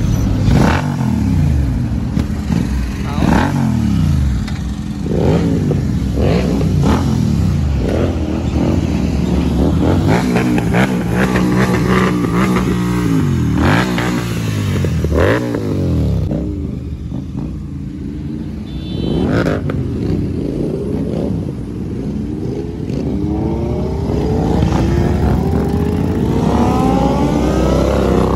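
Motorcycle engines revved again and again, each rev a quick rise and fall in pitch, with several bikes running at once and people talking around them. Near the end engines climb steadily in pitch as bikes accelerate away.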